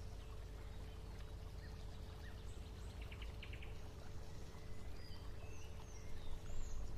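Faint outdoor garden ambience: small birds chirping here and there over a low steady background rumble, with a quick run of ticking calls about three seconds in.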